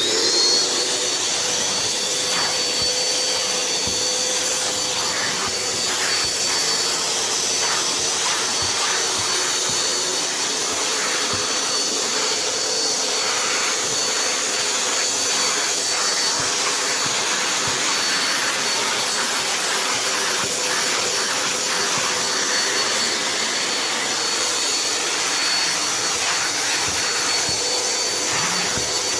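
Vacuum cleaner motor running steadily, a constant whooshing rush with a high steady whine over it.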